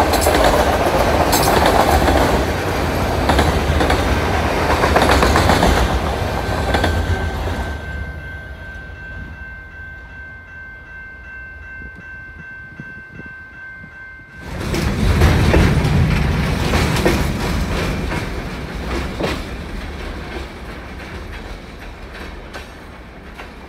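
Freight train of autorack cars rolling past with wheels clacking over the rail joints, fading away about eight seconds in and leaving a steady high ringing from the level-crossing bells. About halfway through, a louder passing freight train cuts in suddenly and slowly fades.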